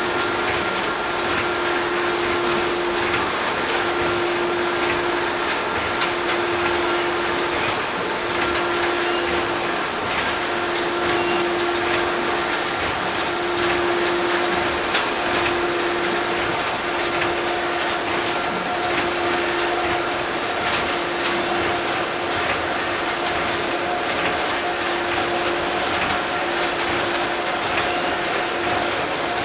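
Automatic washing-powder packaging line running: a form-fill-seal packing machine with doser clattering and clicking steadily, with a hum that breaks off briefly every couple of seconds.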